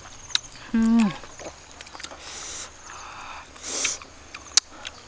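A person eating big cooked snails: hissy slurps as the meat is sucked from the shells, a few sharp clicks of shell and toothpick, and one short 'mm' hum of relish with falling pitch about a second in.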